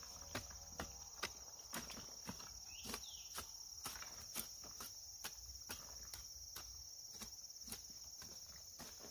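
Hand hoe chopping into soil and weeds in an even rhythm, about two strikes a second, over a steady high-pitched insect drone.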